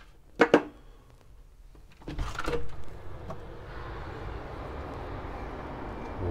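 Two sharp clicks, then a window opened about two seconds in, letting in a steady hiss of outdoor street traffic and a cold breeze.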